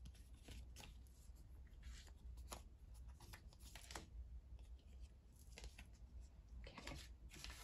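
Near silence: quiet room tone with a low hum, broken by a few faint, short rustles and taps as paper stickers are handled and laid down on a satin tablecloth.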